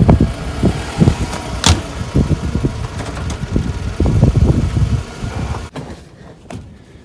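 2009 Toyota Camry running, with loud irregular low thumps and knocks; the sound drops away about six seconds in, followed by a few sharp clicks.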